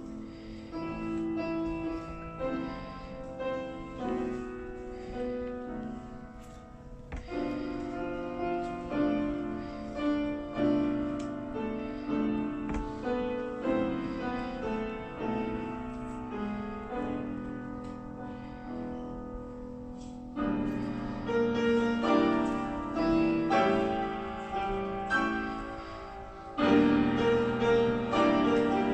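Solo piano playing a slow classical-style piece in chords, growing louder about two-thirds of the way through and again near the end.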